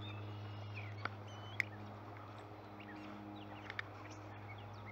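Faint outdoor ambience of short bird chirps over a steady low hum, with a few sharp clicks, the loudest about a second and a half in.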